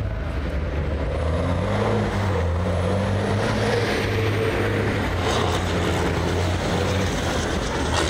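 Dakar rally truck's diesel engine running, its pitch rising about two seconds in, then holding steady.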